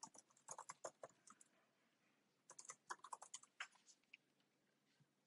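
Typing on a computer keyboard in two quick runs of keystrokes, each lasting about a second and a half, with a pause of about a second between them.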